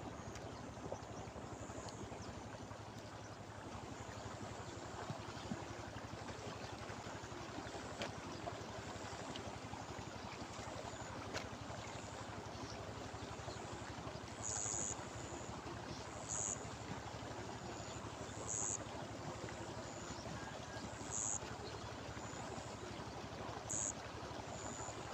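Steady rushing of water churning through shallows at a muddy bank. From about halfway in, a short high-pitched chirp repeats every two seconds or so.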